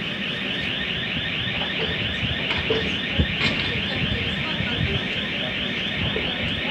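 Door warning signal of a PESA Elf electric train sounding as a fast, even electronic warble of repeated beeps, over a low rumble from the standing train.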